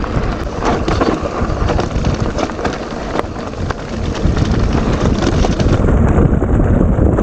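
Wind buffeting the action camera's microphone on a fast mountain-bike descent. Over it come many small clicks and knocks from the bike rolling over rough, stony ground. The noise grows louder about four seconds in.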